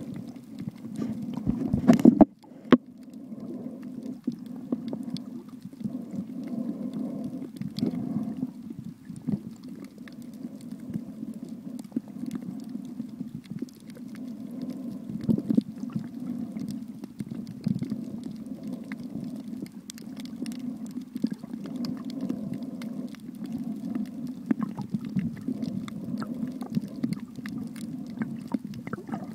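Muffled underwater sound picked up by a camera in a waterproof housing: a steady low hum with many scattered short clicks, and a loud knock-like burst about two seconds in.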